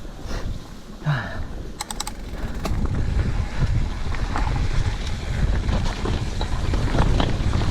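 Mountain bike rolling fast down a dirt singletrack: rumbling wind and tyre noise with scattered rattles and knocks, getting louder from about three seconds in.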